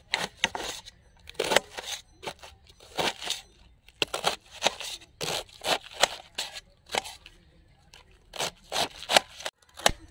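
Kitchen knife slicing finely through a raw cabbage head on a stainless steel plate, a quick run of crisp cuts at about two a second.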